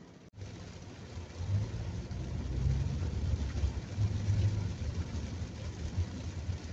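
Car engine and tyre noise heard from inside the cabin: a low drone that grows louder about a second and a half in as the car gets moving, over a steady hiss of rain and wet road.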